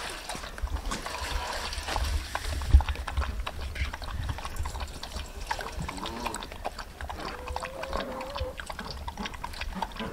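Golden retriever lapping milk from a stainless steel bowl: a fast, steady run of wet licks and small splashes, with milk dribbling in from a squeezed packet. One louder knock comes about three seconds in.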